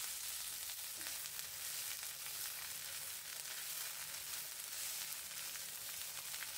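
Freshly washed drumstick (moringa) leaves sizzling steadily as they sauté in hot oil in a pan.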